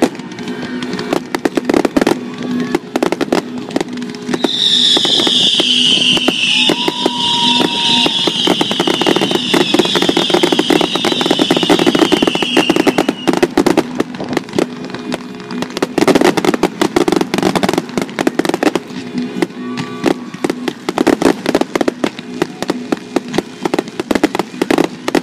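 Fireworks finale barrage: shell bursts and crackling in rapid succession, one over another. From about 4 to 13 seconds in, a high whistle slowly falls in pitch over the bangs.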